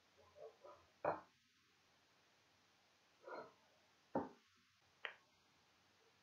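Light knocks and taps of a paintbrush and a ceramic plate on a wooden board: three sharp clicks about a second, four seconds and five seconds in, with softer brief scuffs between them.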